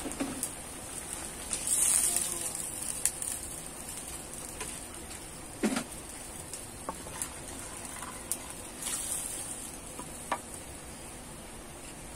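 Parboiled chicken pieces sizzling in a hot, nearly dry pan, the boiling water having been drained off. A steady hiss swells twice, with scattered sharp clicks and one louder knock about halfway.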